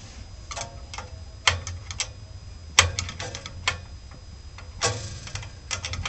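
Scattered sharp metal clicks and taps of a wrench working the thermocouple nut loose on a gas valve, coming in small irregular clusters, the loudest about three seconds in.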